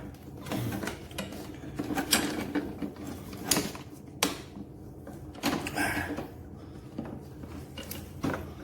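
Clicks, knocks and rubbing from lawn mower parts being handled and pushed into place during assembly. There are half a dozen or so separate sharp knocks, with a brief squeak of parts rubbing about two-thirds of the way through.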